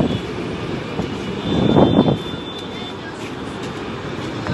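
Steady road traffic noise from a jammed city street, with a louder rough burst of noise about two seconds in.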